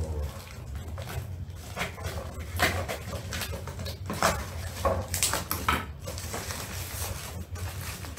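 Black plastic wrapping and packing tape being pulled and torn off a cardboard parcel by hand: irregular crinkling and ripping in short spells, over a steady low hum.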